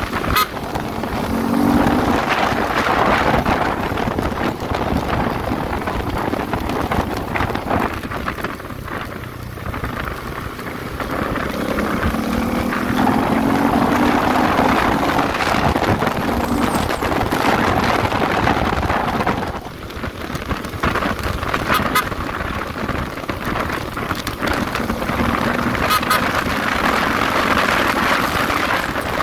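Riding noise from a CFMOTO 300SR: wind rushing past with the motorcycle's engine running under it. The engine's pitch climbs as it accelerates, once near the start and again about halfway through.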